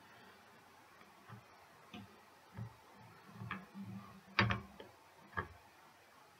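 Scattered light clicks and knocks of a plastic figure being handled and lifted off its plastic base, about half a dozen in all, the loudest a little over four seconds in.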